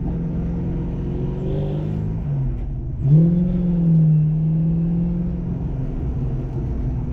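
1988 Ford Mustang GT's V8 engine and exhaust, heard from inside the cabin while driving. The engine note drops for a moment just past two seconds in, then rises sharply and louder about three seconds in as the car is accelerated, and it settles into a steady pull.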